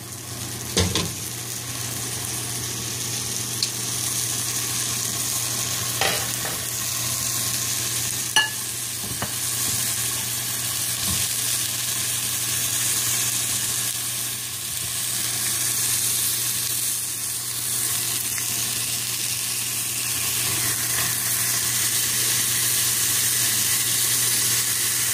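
Zucchini slices sizzling in a little canola oil in a nonstick frying pan, a steady frying hiss that grows a little louder over the last few seconds. A few brief knocks break in, the sharpest about eight seconds in.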